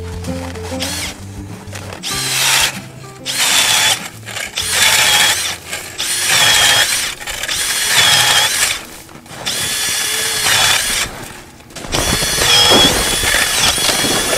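Hand ice auger boring through ice: the blades grind in strokes about once a second, each with a high squeak, and the grinding becomes steadier near the end. Background music fades out in the first second or two.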